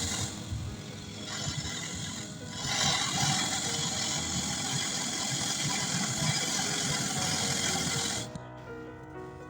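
Background music with a dense, noisy texture that changes about eight seconds in to clearer held notes.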